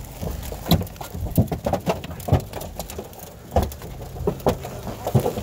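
Large raindrops striking a car's body and windows in irregular knocks and thumps, several a second, during a thunderstorm.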